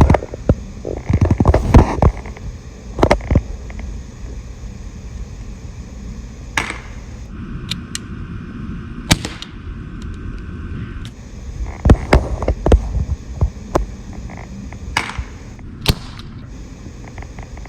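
Glock 19X CO2 BB pistol firing a string of sharp cracks, some in quick clusters and others single shots a few seconds apart, over a low rumble.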